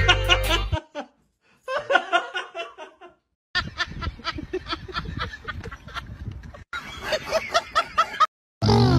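Music cuts off under a second in; then a person laughing in short, repeated bursts, a snickering laugh that goes on through most of the rest.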